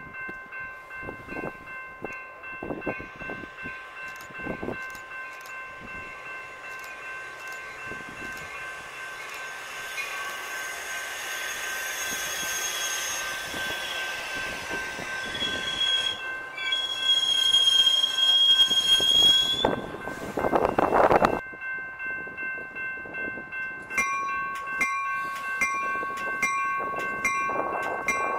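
A Metra commuter train running in along the station track, its wheels and brakes squealing shrilly as it slows, and a loud rumble that cuts off suddenly about 21 seconds in. Grade-crossing warning bells keep ringing throughout, with their strikes heard clearly near the end.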